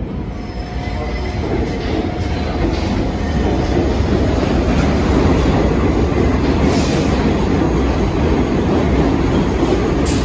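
New York City subway train running along the tracks: a steady, loud rumble of steel wheels on rail, with a faint wheel squeal in the first few seconds.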